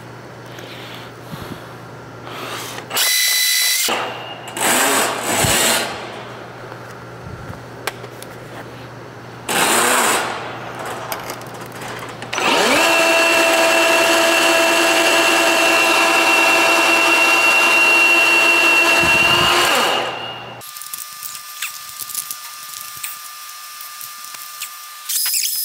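Electric sectional drain-cleaning machine spinning its cable in a clogged drain stack: a few short bursts, then one steady run of about eight seconds that stops suddenly.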